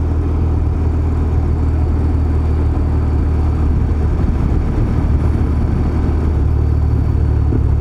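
BMW motorcycle engine running steadily at cruising speed, heard from the rider's seat with wind and road noise, a constant low drone that holds its level.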